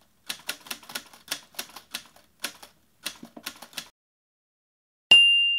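Typewriter sound effect: a quick run of about twenty keystrokes clacking for nearly four seconds, then a pause and a single bell ding near the end that rings on and fades.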